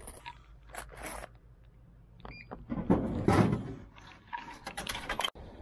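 Drinks vending machine selling a can of corn potage: a few light clicks and knocks, then a heavy clunk about three seconds in as the can drops into the delivery tray, followed by more small clicks.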